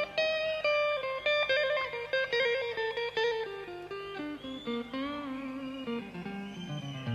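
Electric guitar playing a line of single plucked notes that steps steadily downward in pitch, with one wavering note about five seconds in.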